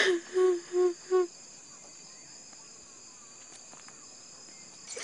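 Crickets trilling steadily at night. In the first second, three short notes at one low pitch sound before the trill is left alone.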